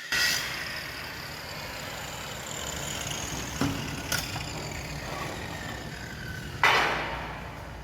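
MIG welding arc crackling steadily, starting abruptly, with a couple of sharp pops in the middle and a louder burst near the end.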